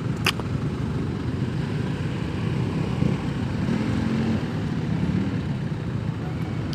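Yamaha RX King's two-stroke single-cylinder engine running steadily while the motorcycle is ridden. A brief sharp click sounds just after the start.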